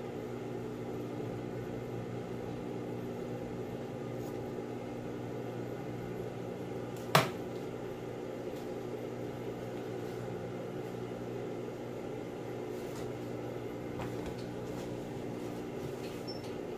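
Steady electric motor hum made of several low tones, with a single sharp click about seven seconds in and a few faint ticks.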